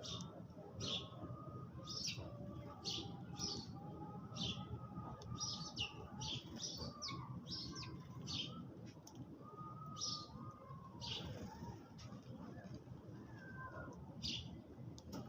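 Sparrows chirping: short, sharp chirps repeated one after another, over a steady low background noise.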